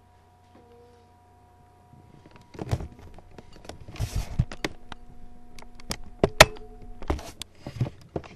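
Handling noise: after a quiet start with a faint steady hum, a run of sharp clicks and knocks with a brief rustle begins about two and a half seconds in, with the loudest knock a second or so before the end.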